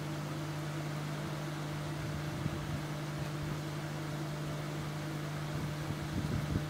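Steady low hum over a constant hiss, with a few faint light clicks near the end.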